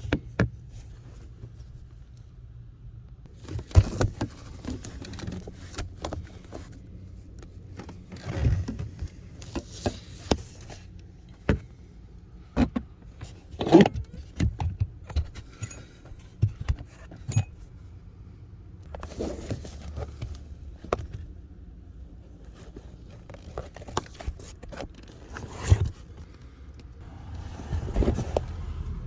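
Hands working the cabin air filter housing and filter of a Volvo S40: irregular sharp plastic clicks, rustling and scraping, the loudest clicks about 4, 14 and 26 seconds in.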